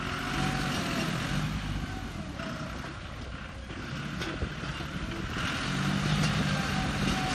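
John Deere tractor's diesel engine working under load as its front blade pushes into a tree stump and brush, the engine note swelling twice, about half a second in and again near the end. A short knock sounds about four seconds in.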